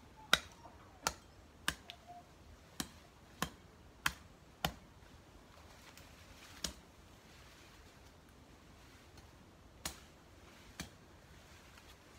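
A machete blade chopping through weeds and plant stems, with about ten sharp strikes. The first seven come quickly, roughly every half second, and three more follow with longer gaps.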